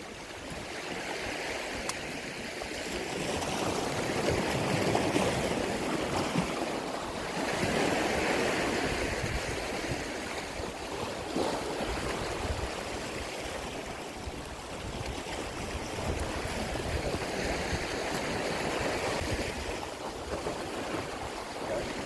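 Sea waves washing against a rocky shore, the noise swelling and easing in slow surges.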